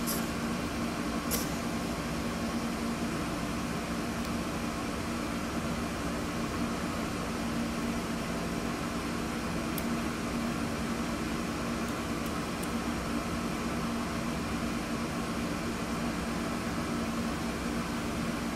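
Steady mechanical hum with a low drone, the kind a fan or air conditioner makes, with a couple of faint clicks.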